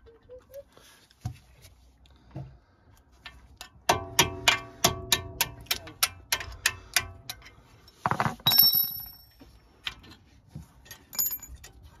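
Hammer and punch driving the brake pad retaining pin out of the front brake caliper: a run of about a dozen quick metallic strikes, roughly four a second, then a clatter of ringing metal clinks as the pin comes free, and a few lighter clicks near the end.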